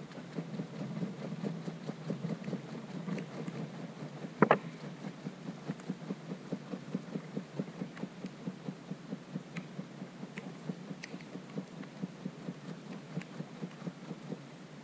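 A seasoning packet shaken by hand over grilling razor clams in a steady rhythm, about four shakes a second. A single sharp knock about four and a half seconds in.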